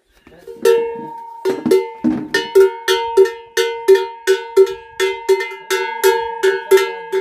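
Large chocalho, a Brazilian cattle bell, shaken by hand so its clapper clanks against the bell. A few uneven strokes at first, then a steady rhythm of about three ringing clanks a second.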